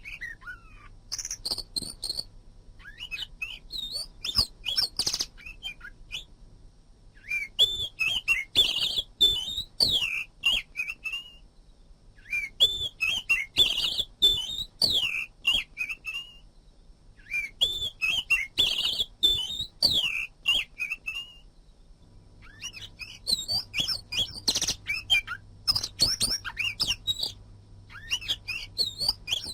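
Oriental magpie-robin (kacer) singing: bursts of rapid, varied whistled phrases mixed with sharp clicky notes, each burst lasting several seconds with short pauses between.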